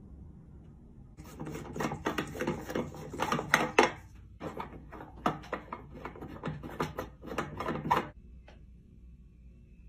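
Light bulb being twisted into a ceiling light socket, its base grinding and clicking in the metal threads as a rapid, uneven run of clicks and squeaks. It starts about a second in and stops abruptly near the end.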